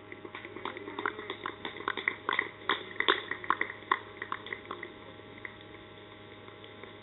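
Scattered hand clapping from a few people, irregular claps that thin out and stop about five seconds in: applause for a batsman reaching his fifty.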